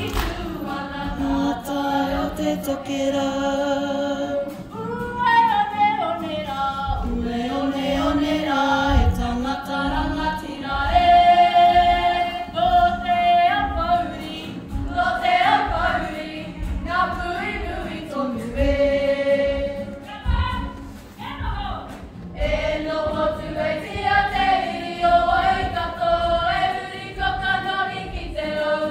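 A group of young female voices singing a Māori song (waiata) together without instruments, with scattered low thuds beneath the singing.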